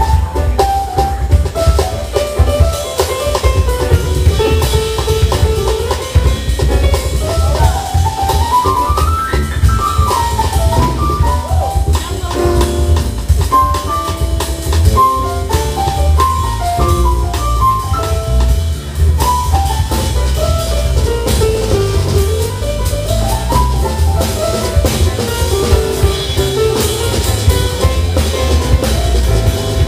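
Jazz band playing live: drum kit, electric bass, electric guitar and keyboard, with a single melodic lead line running up and down over the drums and bass.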